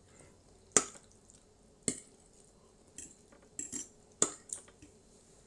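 Forks and chopsticks clinking against plates while noodles are picked up, about seven short sharp clinks spread irregularly, a few coming in quick succession past the middle.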